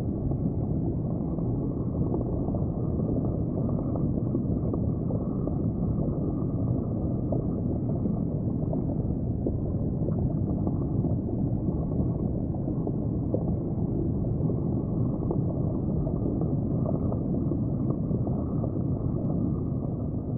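Steady low rushing and gurgling of water as heard underwater in an aquarium tank, with small scattered crackles.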